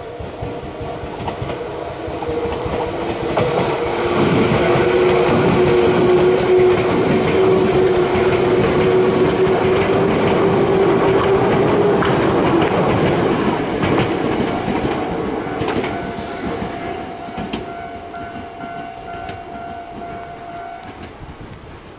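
Tobu 200 series electric limited-express train running past at close range, its wheels clacking over the rail joints under a steady drone. It grows louder as the cars pass, then fades away.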